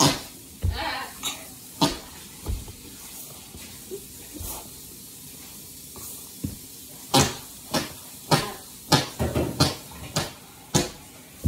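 Whoopee cushion being squashed by hand and by sitting on it, giving short sharp blasts mixed with knocks against the floor. Most come in quick succession in the second half.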